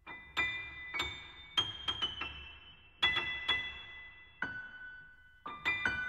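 Background piano music: single high notes and chords struck about every half second, each ringing and fading away.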